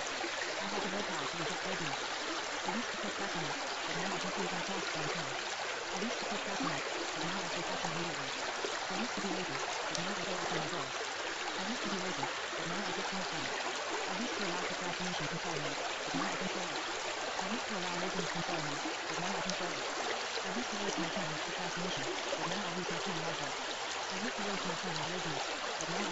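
Steady running-water sound like a stream, used as the masking track of a subliminal, with a faint low voice speaking quiet affirmations buried beneath it throughout.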